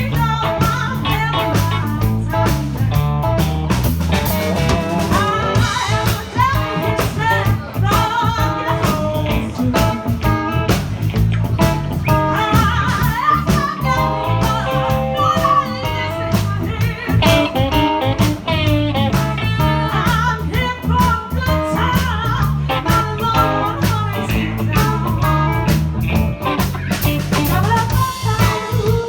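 Live blues band playing a swinging improvised jam: guitar over bass and drums with a steady beat, and a singer's voice in the mix. A long held note comes about halfway through.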